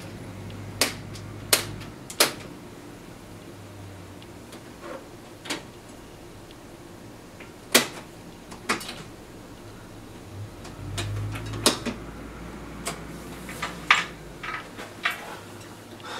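Plastic push-buttons and switches on a 1985 Emerson portable TV/AM-FM radio/cassette set being pressed one after another: about a dozen sharp clicks at irregular intervals. The set, tried on batteries, is getting nothing.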